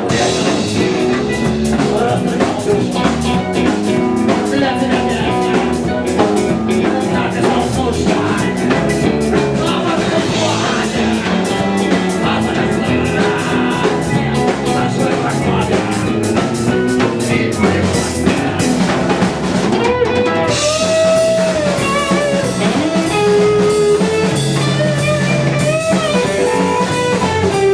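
A rock band playing a song on guitars and drum kit with a steady beat. About twenty seconds in the drums thin out and a melodic lead line with sliding notes comes forward.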